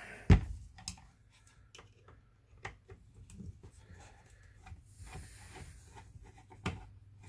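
Hands and tools handling an Apple IIe power supply on a workbench as it is taken apart: one loud thunk just after the start, then scattered light clicks, taps and scrapes, with a short scraping hiss around the middle.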